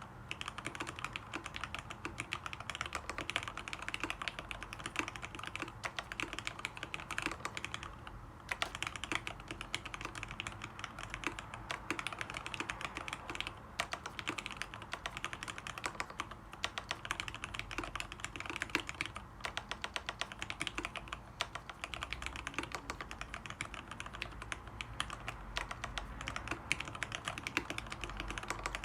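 Continuous fast typing on a custom mechanical keyboard with lubed Tealios linear switches in Cherry top housings, mounted on an aluminium plate, with lubed stabilizers. The keystrokes come in a dense stream, with short breaks about eight and thirteen seconds in.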